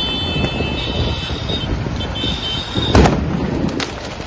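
A firecracker goes off with a single loud bang about three seconds in, followed by two smaller cracks, among burning firecracker stalls. Under it an electronic alarm sounds in long high beeps with short gaps, over a rumble of crowd and vehicle noise.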